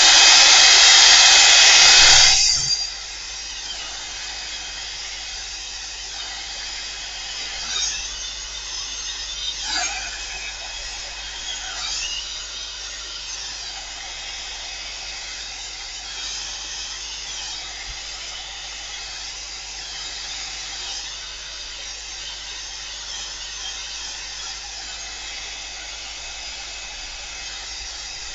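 Hand-held hair dryer blowing, drying acrylic paint on a gelli plate print; it cuts off suddenly after about two and a half seconds. A much quieter steady hiss follows, with a few brief soft sounds.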